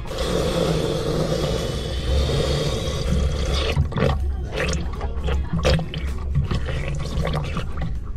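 Water rushing and gurgling through an open port as a boat's ballast tank fills and the last air escapes. About three and a half seconds in, this gives way to splashes and knocks as a hand works a bung back into the wet port.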